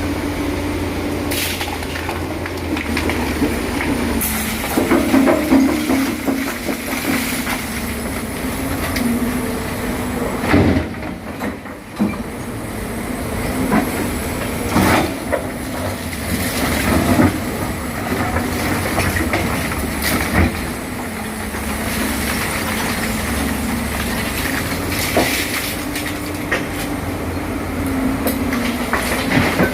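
Excavator working: its diesel engine runs steadily under load, with irregular metallic clanks and knocks from the tracks and bucket.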